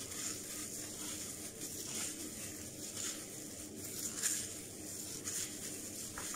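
Fingers rubbing and squeezing wet, curly hair coated in a mashed avocado mask: soft, irregular squishing and rustling strokes.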